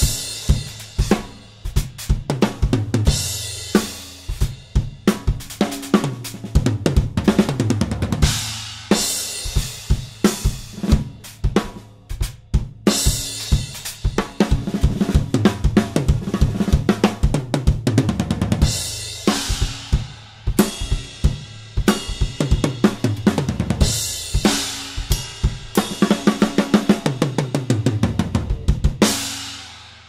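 Gretsch USA Custom drum kit played solo, recorded without EQ or compression: kick, snare and hi-hat grooves, broken up by tom fills that step down in pitch and by cymbal crashes. The playing breaks off briefly near the end.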